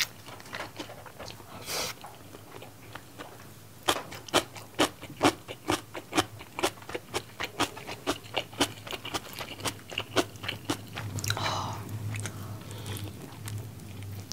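Close-miked chewing of a mouthful of rice and seasoned fried chicken: from about four seconds in, a quick run of crisp, wet mouth clicks, about three a second.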